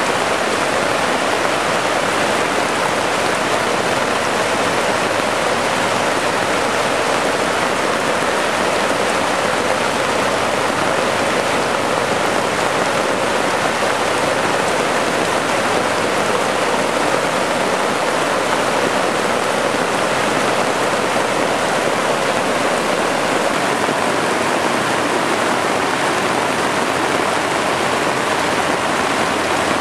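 Torrential thunderstorm rain pouring down on a plastic tarp and waterlogged ground: a loud, steady hiss that never lets up.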